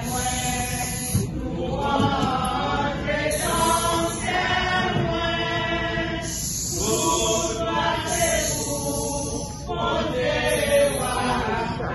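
Church choir singing together in short phrases with held notes.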